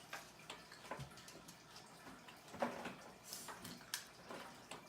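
Small plastic LEGO pieces being handled: scattered light clicks and taps, a few louder ones about halfway through and near the end.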